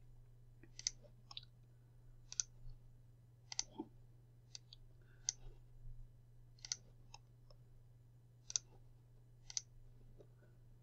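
Computer mouse buttons clicking: about a dozen single clicks at uneven intervals, over a faint steady low hum.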